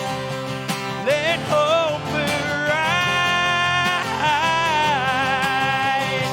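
Live worship song: a singer holds and slides between notes over steady instrumental accompaniment, with no clear words.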